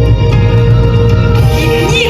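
Music playing loudly: sustained chords over a strong, steady bass, with a voice starting to sing near the end.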